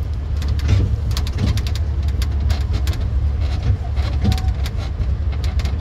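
Road-going land train on the move, heard from its open carriage: a steady low rumble from the running train, with frequent rattles and knocks from the carriage.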